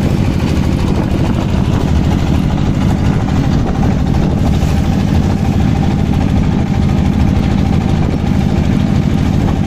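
A boat's engine running steadily at close range, a loud, even low drone with no change in speed.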